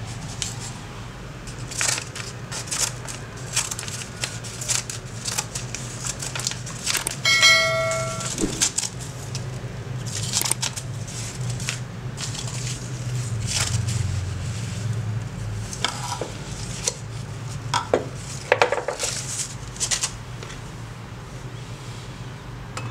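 Freshly restored Japanese steel scissors made in 1983 snipping through paper as a test cut: a scatter of sharp snips and metal clicks of the blades, with one clear metallic ring about seven seconds in, over a steady low hum.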